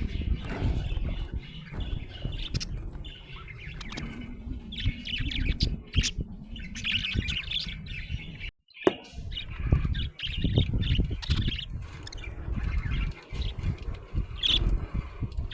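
Budgerigar chirping in many quick, repeated notes over a low rumble, with a brief complete dropout just past halfway.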